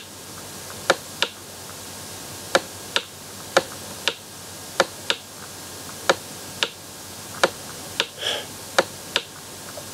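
Sharp clicks, mostly in pairs a fraction of a second apart with about a second between pairs, from handwriting strokes being drawn on a computer whiteboard, over a steady low hiss.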